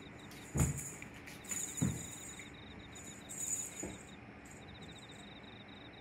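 Soft thumps of a cat rolling and batting at a feather wand toy on a wooden floor, two about half a second and two seconds in, and a fainter one near four seconds. Behind them, faint insects keep up a fast, even chirping trill.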